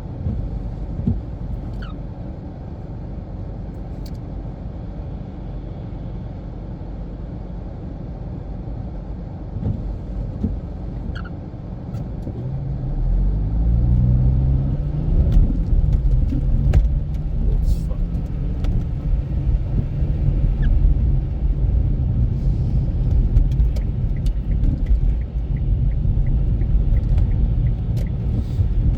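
Steady low road and engine rumble inside a moving car. About 13 seconds in, the engine note climbs in pitch and grows louder as the car accelerates, then settles into a louder steady drone.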